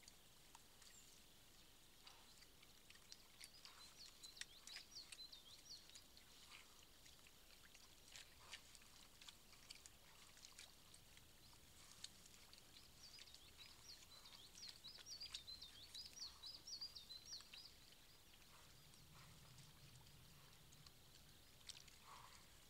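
Faint sounds: a small songbird warbling in two stretches of a few seconds each, over scattered soft clicks and splashes of wild boar rooting and drinking in a muddy pool.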